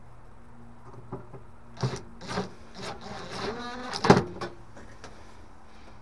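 Small metal parts and tools being handled: several clicks and clatters, a short scrape with a squeak, and a sharp knock about four seconds in, over a steady low hum.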